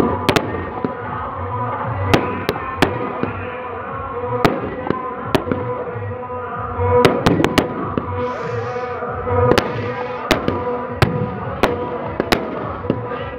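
Fireworks and firecrackers going off in an irregular series of sharp bangs, about twenty of them, with a brief hiss about eight seconds in, over music playing in the background.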